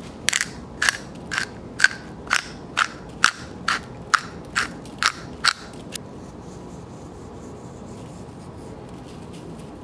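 Hand pepper mill being twisted to grind black pepper, a dry rasping crunch with each turn, about two turns a second, about a dozen in all, stopping about six seconds in.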